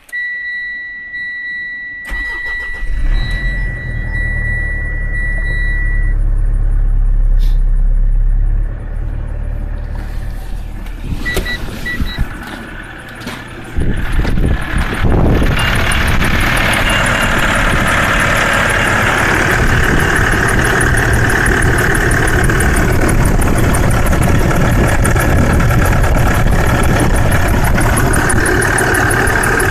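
Mitsubishi Pajero Sport engine started, with a steady warning beep for the first few seconds, then running. From about halfway through, a steady high squeak from the drive belt sounds over the engine: the accessory drive belt squeaking.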